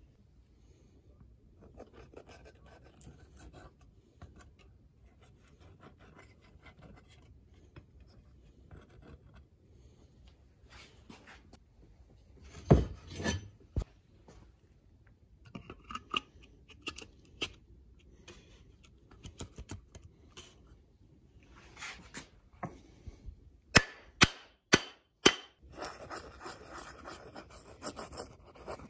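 Handling of wooden parts on a workbench: light rubbing and taps, one loud knock near the middle, then a quick run of about five sharp knocks followed by a few seconds of scratchy noise.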